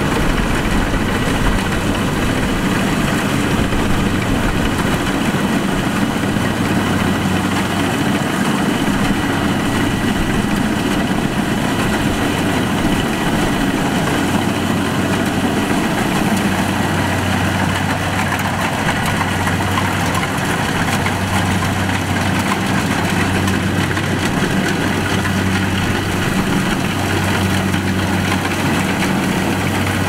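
Kubota DC-70 combine harvester's diesel engine running steadily while the machine cuts and threshes rice: a constant, even drone with a low hum.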